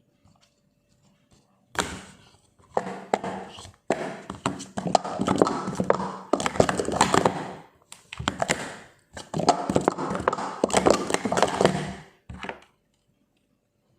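Plastic cups and their packaging being handled: dense clattering and tapping in several bursts with brief pauses, ending with a single tap.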